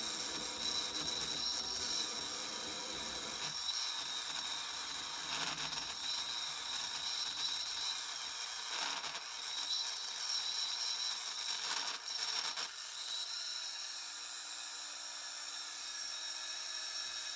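Universal motor from a vacuum cleaner running unloaded on 120 V AC at very high speed: a steady high-pitched whine over a rushing hiss of brushes and commutator. The armature is rubbing against the field poles, which the owner says is making the motor smoking hot.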